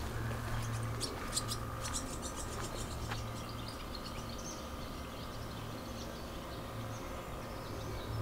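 Swallows twittering in short, high chirps over a steady low hum.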